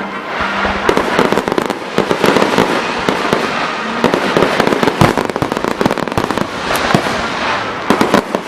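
Aerial fireworks going off in quick succession: a dense run of bangs and sharp cracks over steady crackling, with a louder bang about five seconds in.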